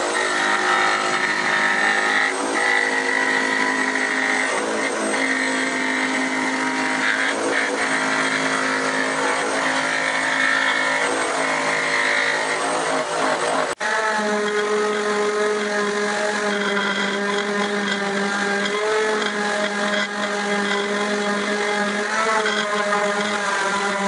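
Electric woodworking power tool running steadily under load, its motor giving a steady droning whine. It breaks off about 14 s in and resumes with a steadier, slightly lower pitch.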